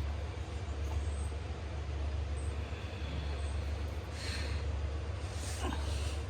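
A steady low rumble, with a couple of short, breathy exhalations about four and five and a half seconds in: a person straining to loosen a tight oil drain plug.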